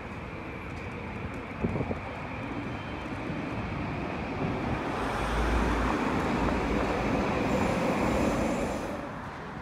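A Vancouver SkyTrain train running on the elevated guideway, its rumble swelling about halfway through and fading near the end, with a high whine toward the end. There is a short knock about two seconds in.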